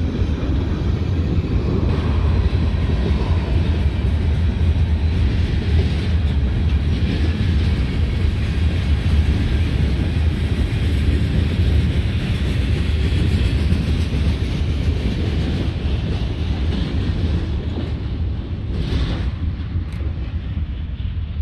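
Cars of a CSX mixed-freight (manifest) train rolling past: a steady low rumble of steel wheels on rail that eases slightly near the end.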